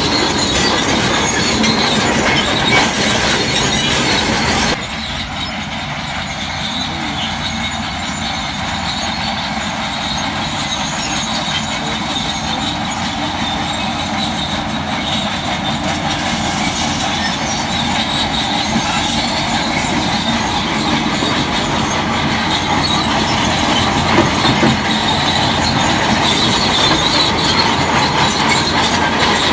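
Bulldozer working, its engine running under the metallic squealing and clanking of its steel tracks. The sound changes abruptly about five seconds in, then slowly grows louder.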